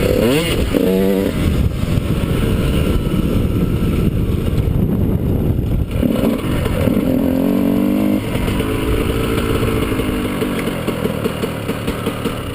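2001 Honda CR125 two-stroke single-cylinder dirt bike engine being ridden, its pitch rising and falling quickly with the throttle early on, then holding steadier revs in two longer pulls.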